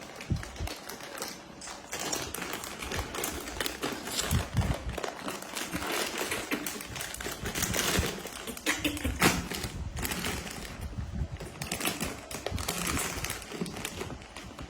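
Rapid, irregular clicking and crackling of small objects being handled, such as plastic snack packaging.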